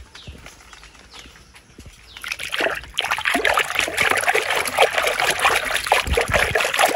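Quiet dripping and small wet ticks, then from about two seconds in a hand swishing and splashing hard in a tub of water, rinsing a slime-coated plastic toy figure.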